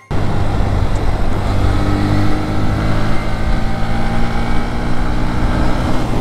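Bajaj Pulsar NS125's single-cylinder engine running at steady road speed, with wind rushing over the microphone.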